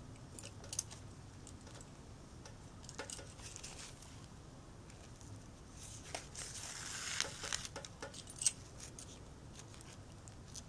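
Quiet handling noise as hands work a fabric strip around a ring: soft rustling of cloth with scattered light clicks and clinks from metal bangles on the wrists. The rustling swells a little past the middle, and there is one sharper click near the end.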